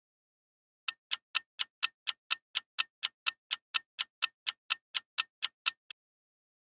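Clock-ticking countdown sound effect: about twenty sharp, even ticks, about four a second, starting about a second in and stopping about five seconds later, the last tick fainter. It is a quiz timer counting down the thinking time before the answer is shown.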